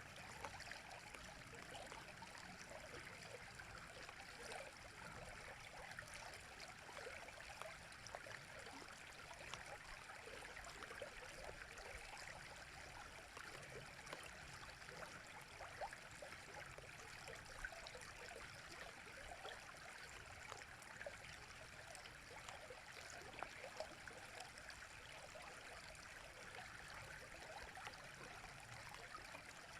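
River running: a steady, faint wash of flowing water, flecked with small splashes and gurgles.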